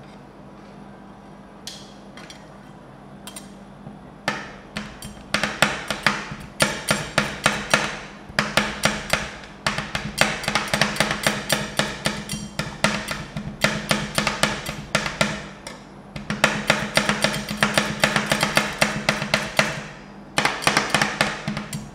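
Two steel ice-cream spatulas chopping dried persimmon in milk on a frozen steel pan: a few single taps, then from about four seconds in fast runs of sharp metal taps, many a second, broken by short pauses. A steady low hum sits underneath.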